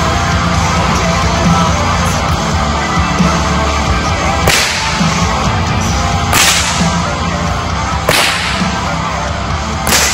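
A sport whip cracking four times, evenly about every two seconds, the first about four and a half seconds in. Loud rock music plays throughout.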